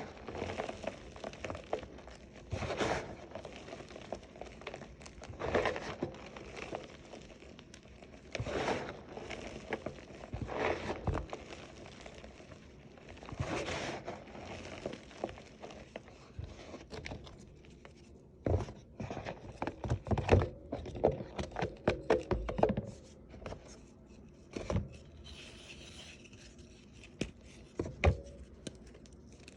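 Green glitter-topped chalk reforms crunching and crumbling in bursts every couple of seconds. About two-thirds of the way in they turn into a quick run of crisp cracks and snaps.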